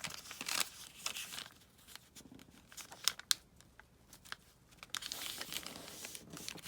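Paper being handled at a craft table: rustling and crinkling of the sheet, with scattered sharp clicks, two stronger ones about three seconds in.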